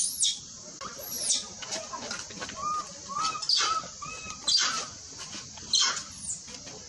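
Infant macaque's distress cries: repeated shrill screams, each one short and arching in pitch, several over a few seconds.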